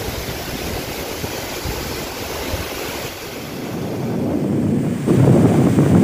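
Steady rushing of a waterfall heard from just above its drop, mixed with wind on the microphone. From about four seconds in it turns louder and lower as wind buffets the microphone.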